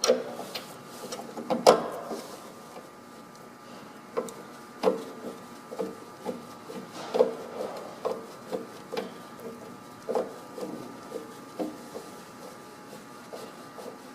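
Irregular light clicks and knocks, about one or two a second, from hand work with tools and metal fittings during valve-body reassembly; the loudest comes at the start.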